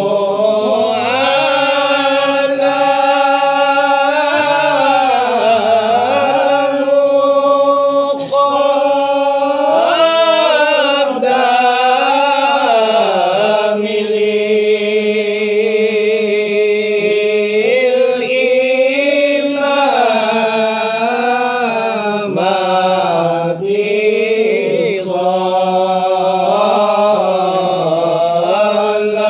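Men's voices chanting Arabic zikir and selawat in Malay marhaban style, with long drawn-out notes that bend slowly up and down in pitch.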